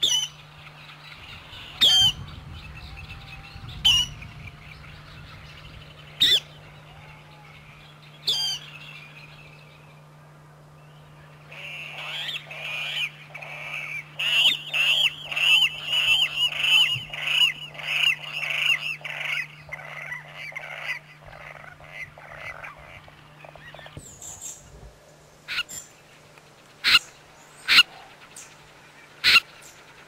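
Water rail calling. It gives a loud sharp call about every two seconds, then a fast run of squealing calls, about two a second, for some ten seconds. Near the end, a few separate short sharp calls follow.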